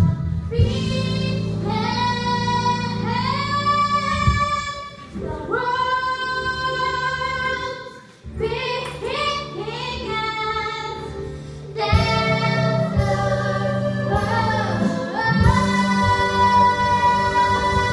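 A young girl singing a show tune over accompaniment, with long held notes and short breaks between phrases.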